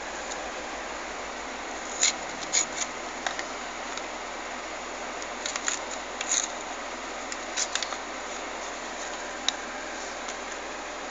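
A foil lens-cleaning wipe sachet handled and torn open with gloved fingers: short sharp crinkles in a few clusters over a steady hiss.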